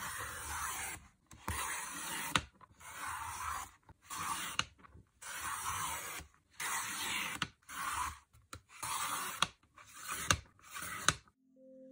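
Sliding paper trimmer cutting printed photos: the blade carriage is pushed along its rail in about ten scraping strokes of roughly a second each, with sharp clicks between some strokes.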